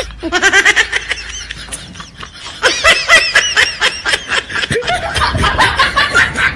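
Laughter in quick repeated bursts. It comes in two runs, a short one just after the start and a louder one about halfway through.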